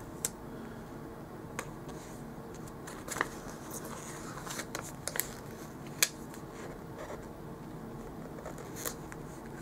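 Paper stickers being peeled and pressed onto planner pages by hand: scattered light clicks and ticks of fingers on paper, the sharpest about six seconds in, over a faint steady hum.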